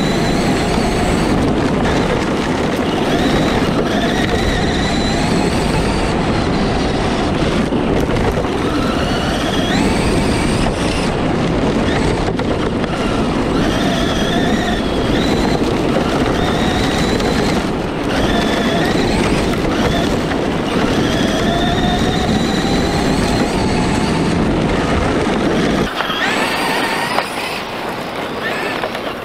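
Traxxas 1/10 E-Revo RC truck's electric motor and drivetrain whining, the pitch rising and falling again and again with the throttle, over a constant rush of tyre and gravel noise heard from a camera mounted on the truck. Near the end the sound drops to a quieter, more distant one.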